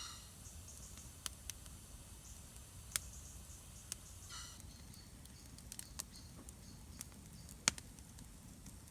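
Wood campfire giving occasional sharp single pops and crackles over a faint steady background. A short high bird chirp comes at the start and again about four seconds in.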